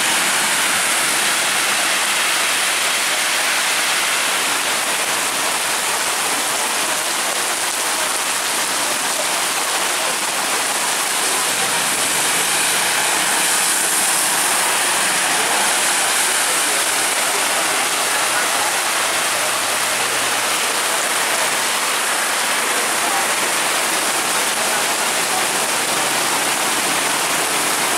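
Heavy tropical downpour, a dense steady hiss of rain on the road, with bus tyres swishing through standing water as buses drive past.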